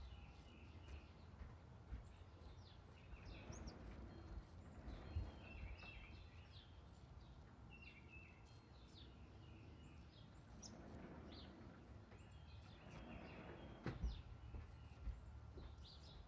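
Faint outdoor ambience: scattered bird chirps over a steady low rumble.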